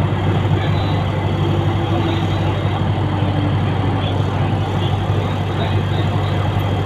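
Steady running noise of a train heard from inside a passenger coach at speed on an elevated track: a continuous low rumble and hum with an even rushing noise over it.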